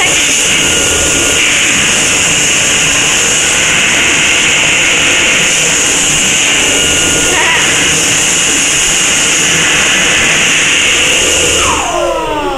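Dyson Airblade hand dryer blowing at full power: a loud, steady rush of air with a high whine. Near the end it shuts off and the motor spins down with a falling whine.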